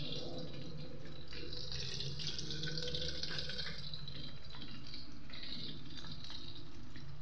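Chicken frying in a pot of hot oil: a steady sizzle that grows louder for a couple of seconds near the middle, over a low steady hum.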